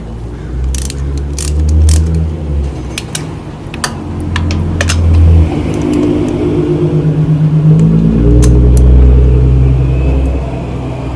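Toyota 2AZ-FE 2.4-litre four-cylinder engine running, revved up and eased off several times, with a few sharp clicks in the first half.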